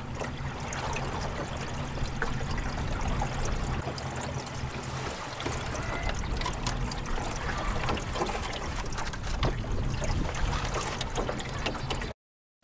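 Water trickling and lapping along the hull of a slowly moving johnboat, under a low steady hum from the boat's bow-mounted motor. The sound cuts off suddenly near the end.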